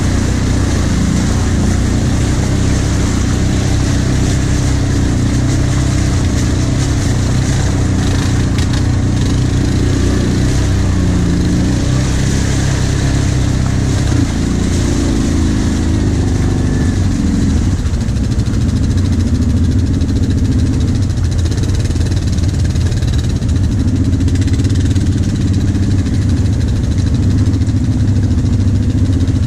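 Kawasaki KVF 750 Brute Force ATV's V-twin engine running at low speed, close to the microphone. The note rises and falls a little as the throttle is worked, and shifts about halfway through.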